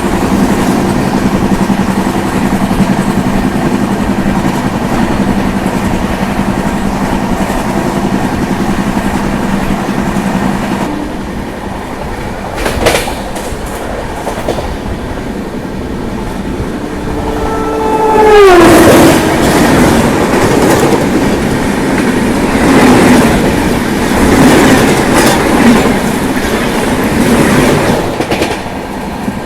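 A train running past with a steady drone for roughly the first ten seconds. About eighteen seconds in, a horn sounds, its pitch falling sharply as the train passes, followed by the wheels clattering over the rail joints.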